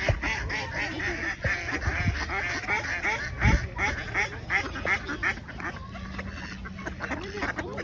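A flock of ducks quacking, with many short calls in quick succession that overlap one another.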